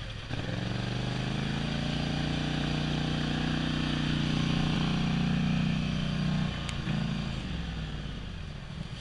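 ATV engine running, its pitch and level climbing slowly as it revs, then breaking off about six and a half seconds in and winding down near the end.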